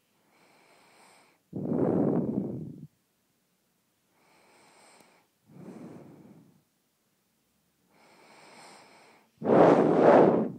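A sleeper snoring: three loud, rattling snores come about four seconds apart. Each is preceded by a softer, hissy breath with a faint whistle, and the last snore is the loudest.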